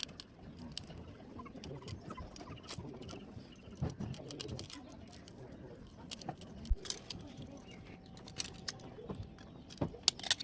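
Scattered light clicks and taps of laptop parts and screws being handled during dismantling, thickening near the end, over a faint low murmur.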